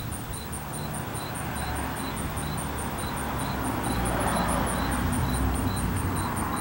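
Insects chirping in a steady rhythm outdoors: a high, rapid pulse about five or six times a second and a lower chirp about twice a second. A soft rushing noise swells up around the middle and eases off again.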